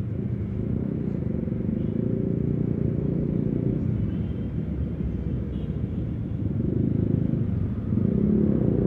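Honda PCX 160 scooter's single-cylinder engine running at riding speed, heard through a steady low rumble.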